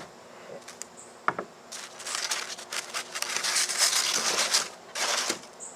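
Styrofoam pieces being handled and pulled apart after a hot-wire cut: a few light clicks, then a couple of seconds of dry scraping and crinkling of foam rubbing on foam.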